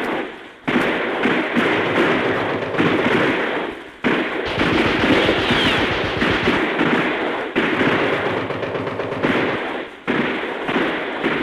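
Modern battle background from an old sound effect record: dense, continuous machine-gun and rifle fire with heavy explosions, briefly dipping a few times, with a short falling whistle about five seconds in.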